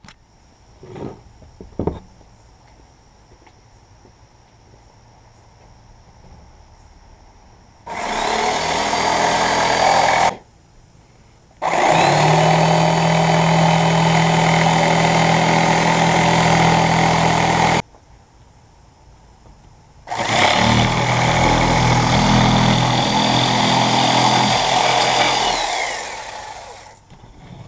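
Electric power saw cutting a sheet of white board panel in three runs: a short run, then two longer cuts, each starting with a rising whine. The last run winds down as the motor spins to a stop. A few light knocks come before the first cut.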